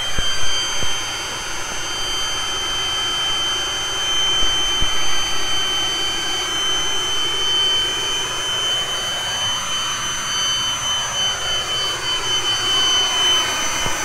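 Handheld leaf blower running at full speed: a steady high whine over a rush of blown air.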